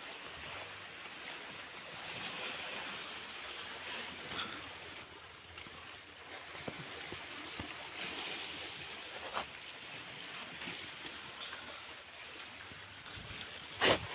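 Steady rushing of strong wind and sea waves, with scattered light knocks and a sharper knock near the end.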